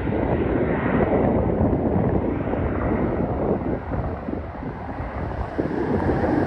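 Jet engine noise from a HondaJet HA-420's two GE Honda HF120 turbofans at takeoff power as it climbs away after liftoff, mixed with wind buffeting the microphone.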